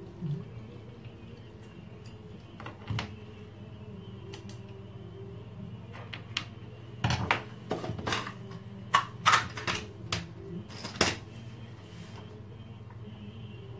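Metal parts of an old wall clock clinking and clicking against a screwdriver as they are handled and worked on. There are a few separate clicks, then a quick run of sharp clinks in the middle, over a steady low hum.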